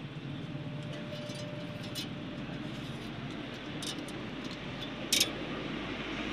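Steady low background hum with a few faint metallic clicks, and one sharper click about five seconds in, as a steel brake pipe is handled and fitted along a rear axle housing.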